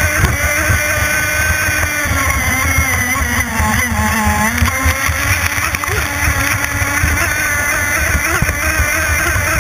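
Two-stroke CMB91RS nitro methanol engine of an RC offshore race boat running flat out, its whine sagging in pitch about four seconds in as the boat banks through a turn, then climbing again. Under it, the hull thuds against the choppy water.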